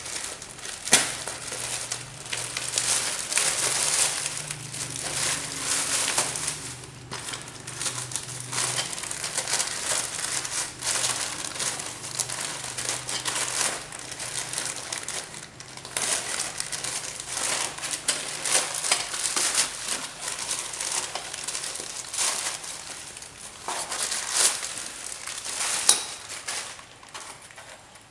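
A parcel from an online shop being unwrapped by hand: its packaging crinkles and rustles irregularly, with many small sharp crackles.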